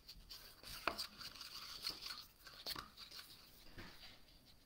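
Faint rustling and handling of paper and cardstock, with a couple of light taps.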